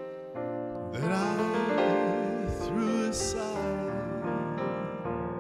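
Slow jazz ballad played live on a stage keyboard's piano sound. A man's voice sings a phrase with vibrato from about a second in, then the piano chords ring on alone.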